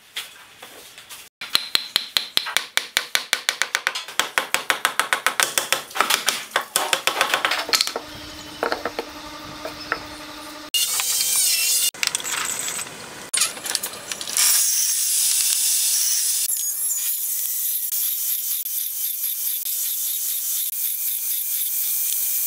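A run of sharp, evenly spaced clicks, about four a second. From about halfway, a table saw runs steadily as a hardwood block is fed through it.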